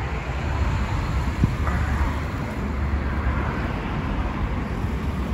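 Road traffic on a city street: a steady hum of car noise with a low rumble, swelling as a car passes about two seconds in.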